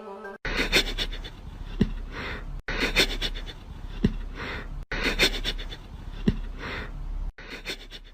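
An animal's breathy panting in a short bit of sound that repeats four times over, each time with one brief higher-pitched squeak partway through.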